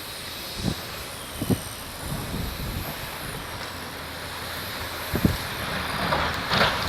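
A road vehicle passing on a snowy street, its noise swelling near the end over a steady hiss, with three short low thumps earlier on.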